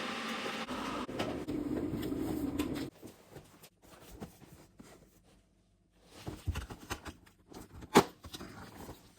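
Cardboard and paper packaging being handled: scattered rustles and small taps, with one sharp click about eight seconds in. A steady hiss fills the first three seconds and cuts off abruptly.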